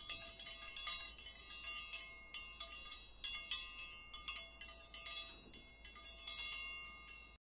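Chimes tinkling: a rapid, irregular run of light strikes on high bell-like tones that overlap and ring on, cutting off suddenly near the end.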